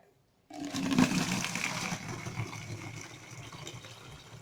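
Cooled sugar syrup with dissolved milk powder being poured from a saucepan into a bottle: a steady pour that starts about half a second in, is loudest just after it begins and slowly tapers off.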